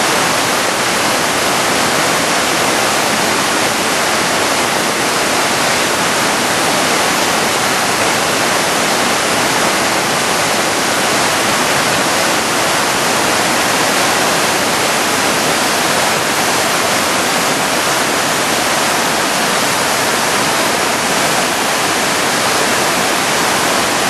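Mountain river swollen by typhoon rain into a muddy flood torrent, rushing loudly and steadily.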